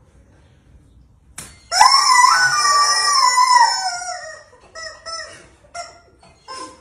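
Rubber chicken squeeze toy letting out one long, wavering squawk of about two seconds, then a few short squeaks.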